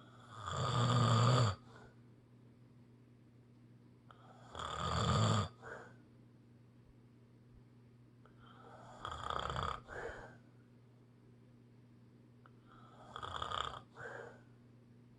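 Snoring: four snores about four and a half seconds apart, each lasting about a second and ending with a short extra puff. The first two are the loudest.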